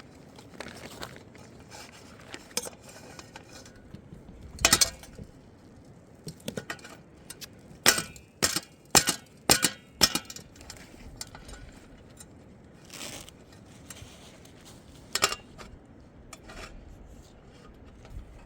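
Scattered clinks and knocks of dishes and utensils being handled, with a run of five sharp knocks about half a second apart in the middle.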